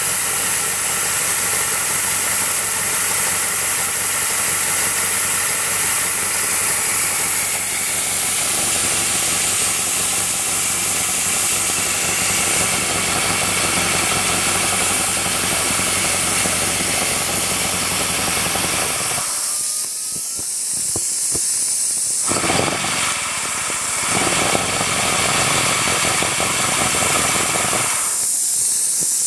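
Aster BR 52 live-steam model locomotive running with its wheels spinning on a roller stand: a loud, steady hiss of steam over a mechanical running noise. Twice near the end the running noise drops away and only the hiss remains.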